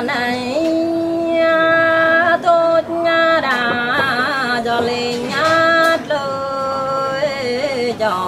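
Mường folk singing: a woman's voice holding long notes that step from pitch to pitch, wavering about halfway through, over a second, lower held line.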